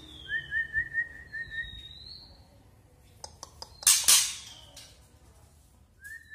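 Young male white-rumped shama singing: clear gliding whistles and a quick run of about six short rising notes, broken about four seconds in by a loud, harsh crackling burst.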